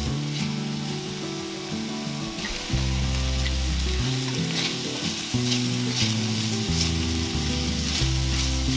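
Chopped onion and garlic sizzling in hot olive oil in an enameled cast-iron skillet, with a silicone spatula scraping and stirring now and then. Background music with a bass line plays underneath.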